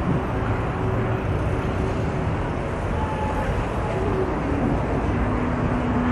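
Steady city street noise: car traffic running, an even rumble with no single event standing out.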